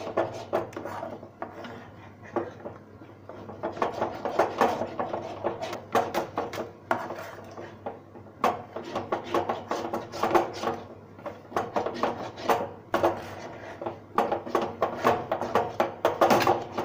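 Steel spoon scraping and knocking against an aluminium kadhai while stirring a thick, cooking besan paste, in irregular strokes.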